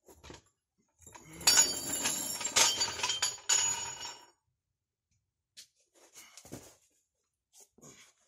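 A burst of clattering and scraping with several sharp metallic clanks and a faint ring, lasting about three seconds, then a few faint soft taps like footsteps.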